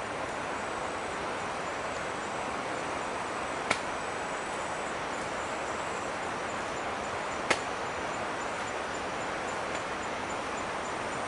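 Steady rainforest ambience: an even hiss with a faint, rapid high-pitched insect pulsing above it. It is broken twice by a sharp single click, about four seconds in and again about seven and a half seconds in.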